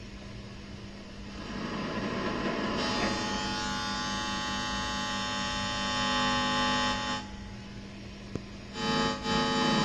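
Mooer GE200 multi-effects unit's output with strong static noise: a low steady hum, then a loud buzzing hiss with several steady whining tones swells up about a second and a half in. It cuts off sharply around seven seconds and comes back abruptly near the end.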